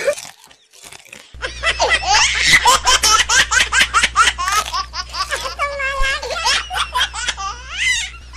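Loud, hearty laughter: a long run of rapid ha-ha bursts starting about a second and a half in, over a steady low hum.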